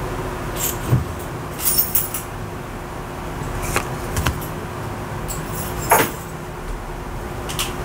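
Tarot cards and their box being handled: a handful of short sharp taps, clicks and rustles as cards are set down and moved, over a steady background hum.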